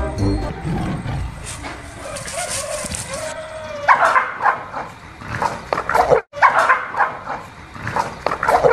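A dog barking and snarling in quick, loud bursts, an aggressive attack reaction. The bursts start about four seconds in after a quieter stretch, with a brief break in the middle.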